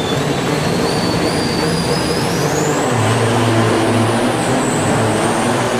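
Loaded semi-truck's diesel engine running hard under acceleration, with a high whine that climbs in pitch about two seconds in and then holds.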